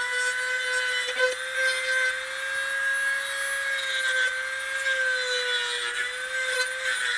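Small electric saw cutting a piece of wood, its motor running with a steady whine that dips a little in pitch now and then.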